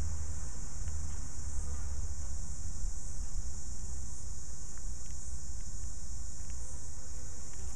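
Steady high-pitched insect chorus over a constant low rumble, with a few faint ticks.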